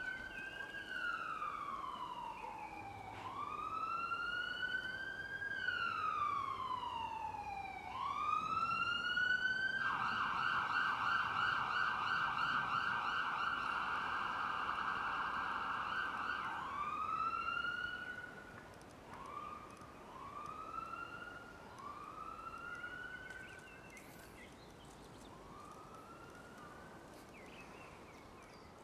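Emergency vehicle siren wailing in slow rising and falling sweeps, then switching to a fast yelp for about six seconds. It follows with a few short rising whoops that grow fainter and die away near the end.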